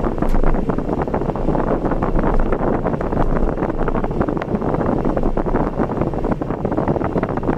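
Steady rushing noise of a car on the move, wind and road noise buffeting without letting up.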